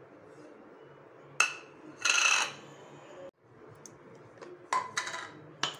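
Whole spices (coriander seeds, fennel, cumin, pepper, cloves) poured from a ceramic plate into a stainless-steel mixer-grinder jar, with a sharp clink and a short rush of seeds rattling in. Near the end come a few quick clicks and clinks as the jar's steel lid is handled.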